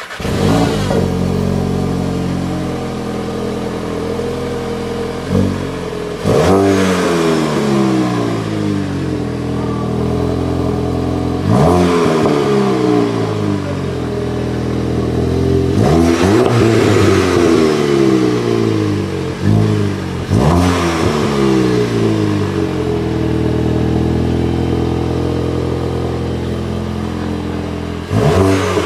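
2018 VW Golf GTI Performance's 2.0-litre turbocharged inline four-cylinder petrol engine, heard at its dual exhaust, settling from its start-up flare into idle. It is then revved five times, each rev climbing quickly and falling back to idle.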